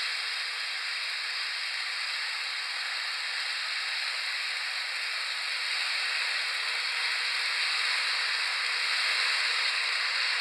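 Mehano H0 Class 66 model locomotive and its freight wagons rolling on sectional track: a steady hiss of wheels on rails with a faint steady whine, growing a little louder as the train comes closer. It is mechanical running noise only, because the model has no sound decoder.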